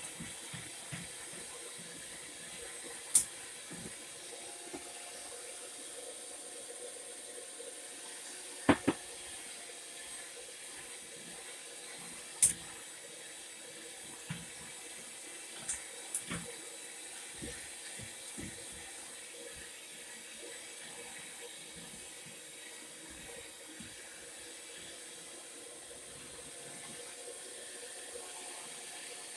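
Cookie dough being mixed in a bowl: a steady soft scraping and stirring, with a few sharp clinks or knocks scattered through it.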